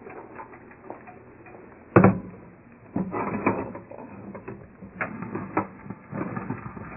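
Stainless steel pot and its lid clanking and rattling against each other as the pot is tipped over a sink to drain the pasta water past the lid. One sharp knock comes about two seconds in, then a run of rattles and knocks.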